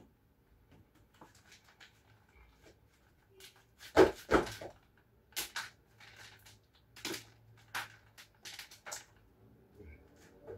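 A series of household knocks and clatters, like cupboard doors and objects being handled and set down; the loudest is a double knock about four seconds in, with several lighter clacks after it.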